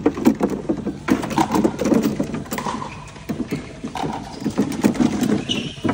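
Plastic pickleballs pouring from a ball basket into the ERNE pickleball machine's plastic hopper: a rapid, irregular clatter of many small knocks as the balls drop and bounce against each other and the hopper.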